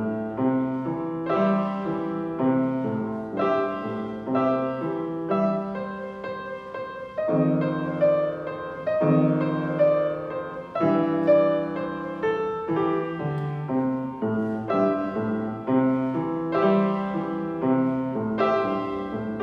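Piano played four hands: a boogie duet in a steady, bouncing rhythm of quick notes, with a stretch of longer held chords midway through.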